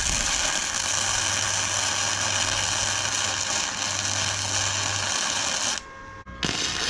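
Electric arc welding on steel: a steady crackling hiss that cuts out briefly near the end, then strikes up again.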